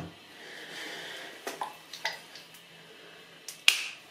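Handling of a plastic shampoo bottle over a sink: a soft hiss, a few light clicks, then one sharp snap near the end.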